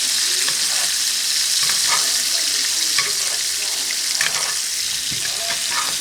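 Tenderloin filet steaks searing in hot oil in a pan: a steady high sizzle with scattered crackles and pops of spitting oil.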